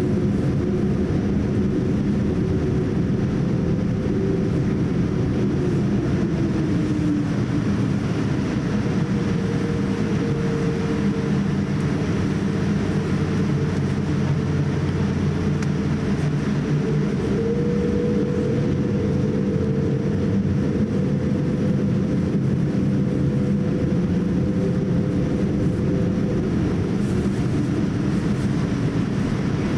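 Cabin noise of a Boeing 787-8 taxiing, with its Rolls-Royce Trent 1000 engines at low taxi power: a steady low rumble with a few humming tones that drift slightly in pitch as the thrust changes.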